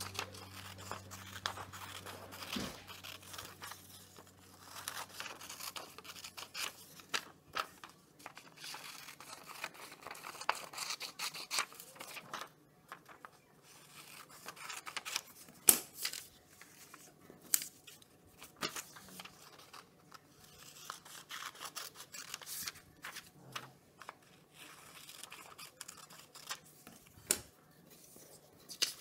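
Scissors cutting a paper activity-book page: a long, irregular run of crisp snips, with the paper rustling and being handled between cuts. A few snips stand out louder than the rest.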